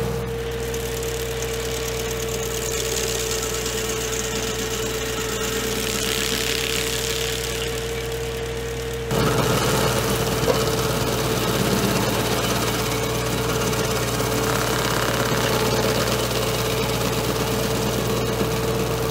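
Diesel tractor running a PTO-driven stump grinder, a steady engine hum with a constant whine over it. About nine seconds in the sound becomes louder and rougher.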